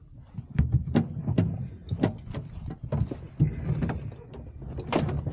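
Knocks, bumps and scraping from a pilot in a parachute harness climbing into a glider's cockpit, a scattered run of sharp clicks and thuds, with wind rumbling on the microphone.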